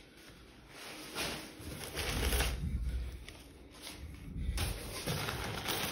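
Packaging being handled: rustling paper and cardboard with low bumps and rumbles as a kitchen sink is moved inside its box.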